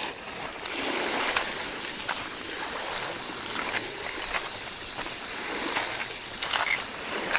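Small waves lapping at the water's edge, swelling and fading, with scattered light clicks.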